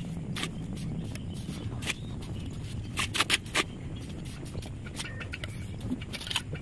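Mason's steel trowel scooping and spreading cement mortar, with scrapes and sharp taps of the blade, loudest in a quick cluster of taps about three seconds in. A steady low rumble runs underneath.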